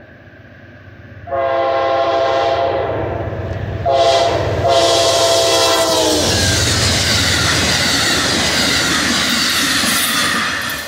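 An Amtrak Vermonter's locomotive horn sounds the end of a grade-crossing signal: a long blast, a short one and a final long one, a chord of several tones. Then the locomotive and stainless-steel coaches pass close by with a loud rush and wheels clacking over rail joints, fading near the end.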